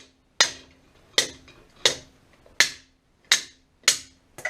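A short-handled stubby hammer striking metal, about seven hard blows at a steady pace of roughly one every 0.7 seconds, several with a brief ringing tone. The blows are aimed at freeing a stuck throw-out bearing from a garden tractor's driveshaft.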